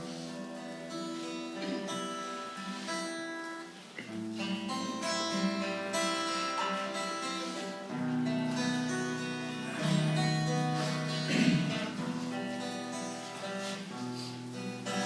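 Acoustic guitar playing on its own, chords ringing with the bass note changing every few seconds: the instrumental introduction to a Russian Christian hymn, before the singing comes in.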